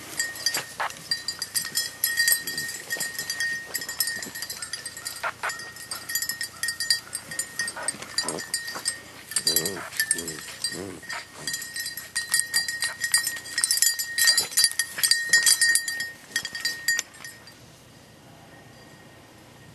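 Beagles yelping and baying as they hunt through brush, with a steady high ringing and jingling running under them; the sounds stop a few seconds before the end.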